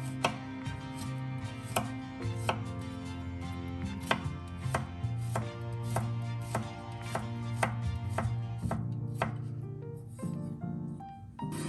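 Chef's knife chopping peeled garlic cloves on a wooden cutting board: sharp knocks of the blade on the board, about one or two a second, with background music underneath.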